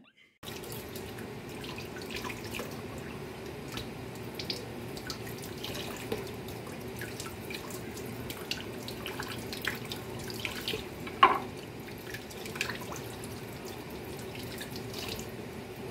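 Kitchen tap water running steadily into a sink, with scattered small clicks and taps of prawns and a knife being handled. One sharper click comes about 11 seconds in.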